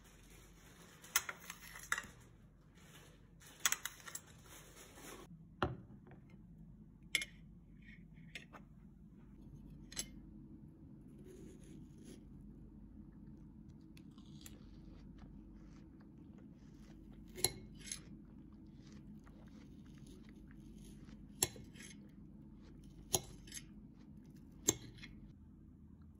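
A metal fork clinking against a glass dish and a china plate while moving and picking up melon pieces: about ten sharp, separate clinks spread out, over a low steady hum that comes in about five seconds in.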